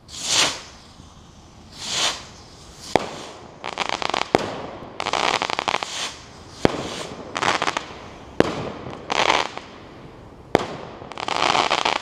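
Consumer 1.3G firework rockets firing one after another: short rushing whooshes as they go up, several sharp bangs as they burst, and spells of fast crackling from crackling-star effects.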